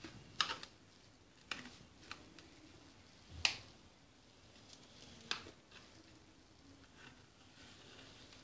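A knife scoring a syrup-soaked semolina cake (basbousa) in a metal baking tray: quiet cutting with about six sharp clicks and taps as the blade meets the tray, the loudest about three and a half seconds in.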